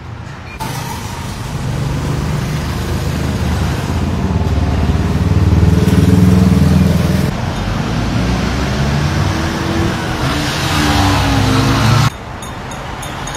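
Road vehicles passing close by, their engine noise building to a peak midway, then a second one whose engine pitch falls as it goes past. The sound cuts off abruptly near the end.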